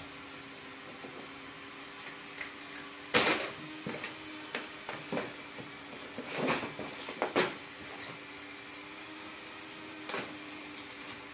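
Paper and cloth rustling and crinkling in a few short bursts as a cat shifts under a blanket lying on a sheet of paper, the loudest about three seconds in and a cluster between six and seven and a half seconds, over a steady low hum.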